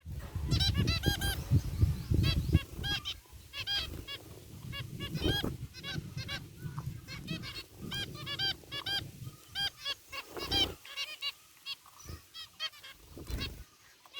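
A group of zebra finches calling in quick overlapping runs of short, nasal, honking beeps, thinning out after about eleven seconds. A low rumble sits under the calls in the first three seconds.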